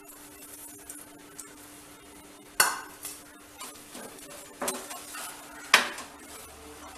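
Spoon stirring a thick mango mixture in a pan, scraping softly and knocking against the pan three times with sharp ringing clinks.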